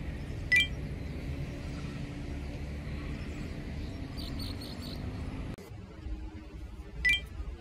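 Outdoor city background: a steady low rumble that drops quieter about five and a half seconds in. A short, bright ping sounds about half a second in and again near the end, and a quick run of four or five high chirps comes around four seconds in.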